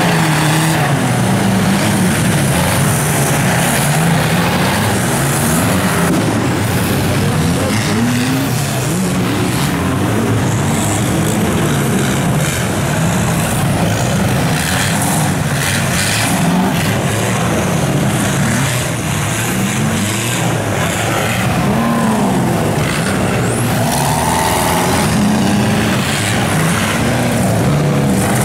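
Off-road 4x4 race vehicle engines revving hard, the pitch rising and falling over and over every second or two, loud and without a break.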